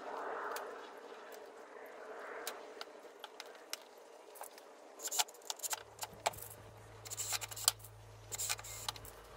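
Light clicks, taps and scrapes of bar clamps, a wooden frame with a perforated metal panel, and a cordless drill being handled on a workbench, growing more frequent past the middle, with a faint low hum joining in.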